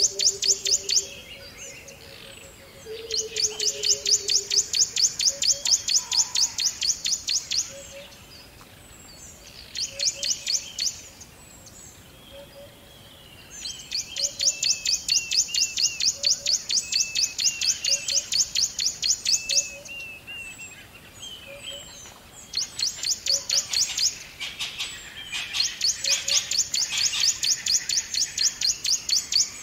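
Forest birdsong: long, rapid, high-pitched trills in bouts of several seconds, with softer chirps in the pauses between them. A faint low note repeats about once a second, and a low falling tone sounds near the start.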